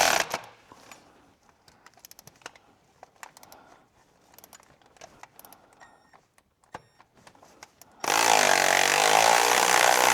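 Scattered light clicks and clinks of hand tools on metal, then, about eight seconds in, a power tool starts up loud and runs steadily on an exhaust manifold fastener, its pitch wavering as it works. A short burst of the same tool sounds at the very start.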